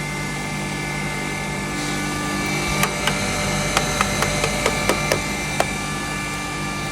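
2 HP turmeric grinder running with a steady electric motor hum and whine, with a quick run of sharp clicks and knocks about three to six seconds in.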